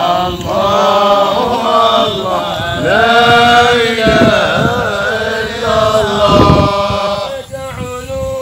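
Men's voices chanting a Sufi hadra dhikr together, many voices at once, thinning back to a single singing voice near the end.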